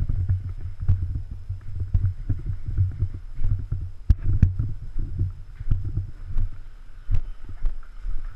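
Footsteps and handling noise on a body-worn camera: irregular dull thumps and rumble as the wearer walks over a rubble-strewn floor, with a few sharp clicks.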